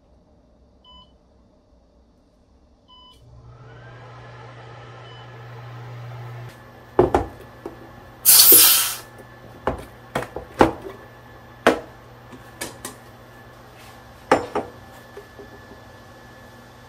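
Two short beeps from the touch controls of a Corelle Seka induction cooktop, then the cooktop switching on with a steady low hum and a faint whine from its cooling fan. Later, a loud short rush of noise as the lid of a plastic storage container is opened, followed by knocks and clicks of the container and the ribs being handled.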